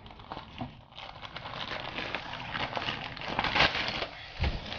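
Clear plastic wrapping crinkling and a nylon carry bag rustling as a tripod in its plastic sleeve is pulled out of the bag and handled. It comes as a steady run of small crackles, loudest a little past the middle.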